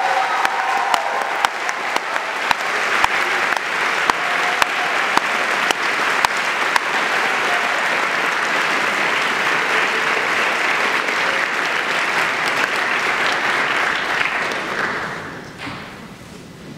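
Large audience applauding steadily, then dying away about a second before the end.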